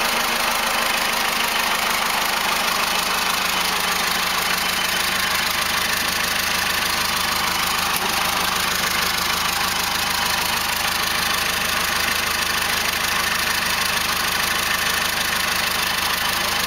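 Cummins 4BT 3.9-litre four-cylinder turbo diesel idling steadily with no exhaust pipe or turbo plumbing fitted, so it runs open and unmuffled. It is a freshly swapped engine on its second start.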